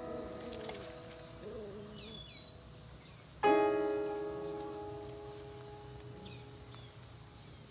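Background piano music: a chord is struck about three and a half seconds in and rings on, slowly fading, with the last chord still dying away at the start. Under it runs a steady high insect drone, like crickets.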